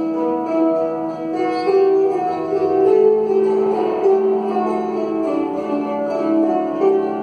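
An ensemble of wooden lyres plucked together, playing a melody of long, overlapping ringing notes.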